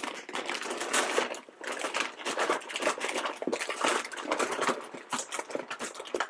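Hands rummaging through a bin full of plastic blind-bag packets: a dense, continuous crinkling and rustling of the packaging, with many small sharp crackles.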